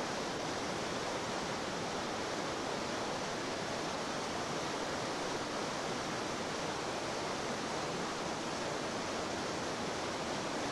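Whitewater rapids rushing steadily, a continuous even noise with no breaks.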